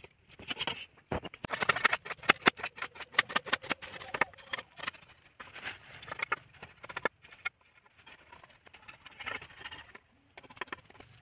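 A large knife shaving and splitting a bamboo stave, the blade scraping along the cane with quick sharp clicks. A dense run of strokes comes in the first few seconds, then shorter scraping bursts with pauses between.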